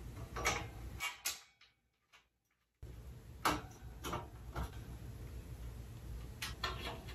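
Small, faint clicks and taps of metal parts being fitted together by hand as a metal-frame shoe rack is assembled, a few at a time, with the sound cutting out completely for about a second and a half near the start.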